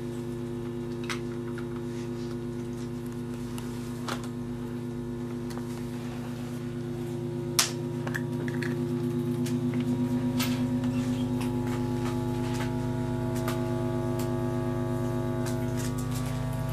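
Steady drone of several held low tones from a round tabletop being bowed with a string bow. It swells a little louder and wavers about halfway through, with a few scattered clicks and one sharp click just before the swell.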